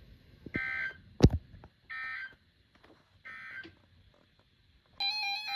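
Emergency Alert System end-of-message data tones: three short bursts of harsh digital buzzing, about a second apart, marking the end of the warning broadcast. A single sharp click, the loudest sound, falls between the first two bursts. Near the end a new steady electronic sound made of several tones begins.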